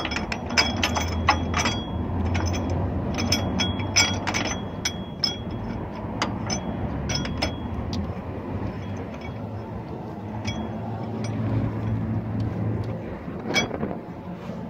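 Tools and metal parts clinking and tapping during hand work on a Cummins ISX diesel engine's front gear train. The clicks come thick over the first several seconds and thin out later, over a low steady hum.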